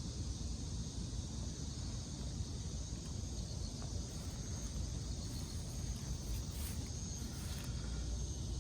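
Insects chirring steadily in a high, even drone over a constant low outdoor rumble.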